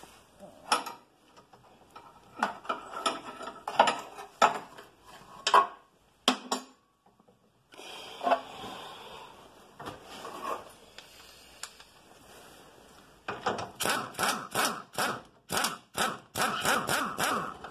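Metal knocks and clanks of hand tools working on a car's front suspension: scattered single knocks, then a run of quick repeated knocks, about four a second, near the end.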